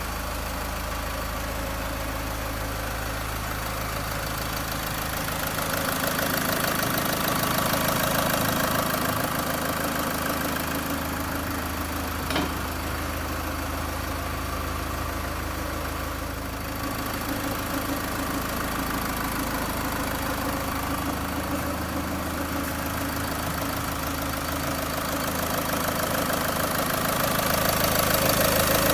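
Car engine idling steadily, with a knocking-like rhythm, while its extraneous noise is being traced. There is a single sharp click about twelve seconds in, and it grows somewhat louder for a few seconds around the middle of the first half and again near the end.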